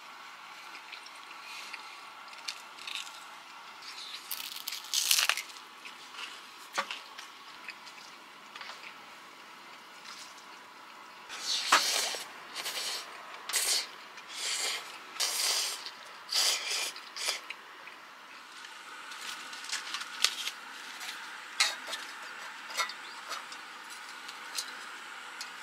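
Close-up eating sounds: a run of loud slurps of instant ramen noodles in the middle, with lighter bites, clicks and taps before and after.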